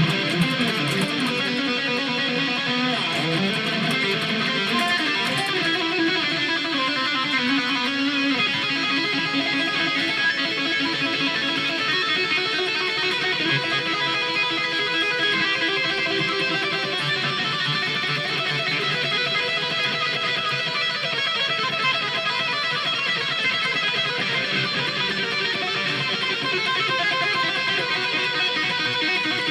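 Electric guitar being practised, playing rock steadily throughout, with a run of lower notes moving through the first eight seconds or so.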